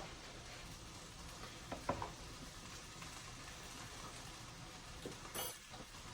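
Chicken and salmon frying in a pan: a faint, steady sizzle, with a couple of short clicks about two seconds in and again near the end.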